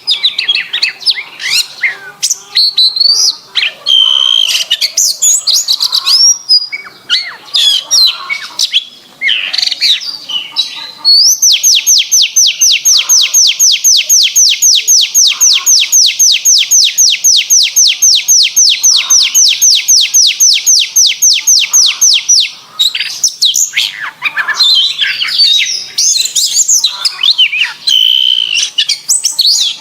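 Domestic canary singing: quick, varied high warbling, broken in the middle by one long, even trill of rapidly repeated notes that lasts about eleven seconds.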